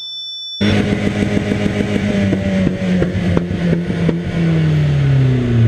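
BMW car engine running and being revved, starting abruptly about half a second in, with scattered sharp clicks over the first few seconds. From about four seconds in, the engine note falls steadily in pitch.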